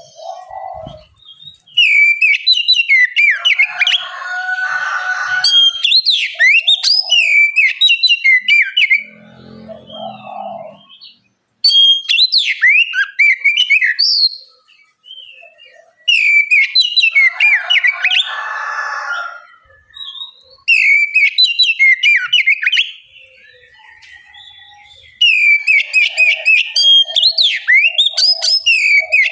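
Oriental magpie-robin (kacer) singing loudly in bouts of rapid, varied whistles and sharp chattering notes, the bouts broken by short pauses.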